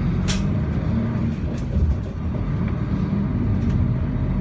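Interior of a moving city bus: a steady low engine and road rumble, with a couple of sharp clicks or rattles in the first two seconds.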